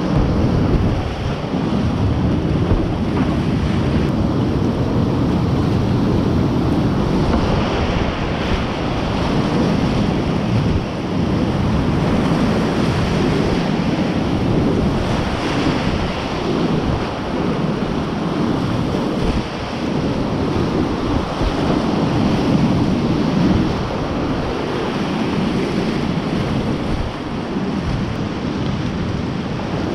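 Whitewater rapids of the Duckabush River at about 600 cfs rushing and churning around a kayak, loud and steady, close to a first-person camera's microphone. Water and air buffet the microphone, giving a heavy low rumble, and splashes now and then add a brief hiss.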